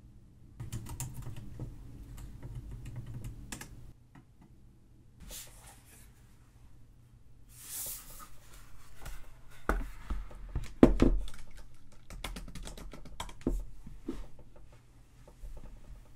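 Typing on a MacBook Pro laptop keyboard: runs of irregular key clicks, with a few heavier knocks about ten to eleven seconds in.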